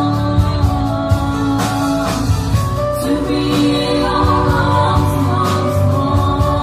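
Live band playing a song: electric guitar and bass with regular drum hits, and a voice singing held notes.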